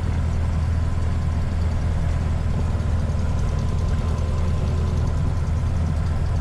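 Cessna 150's Continental O-200 four-cylinder engine running steadily at low taxi power, a constant low drone.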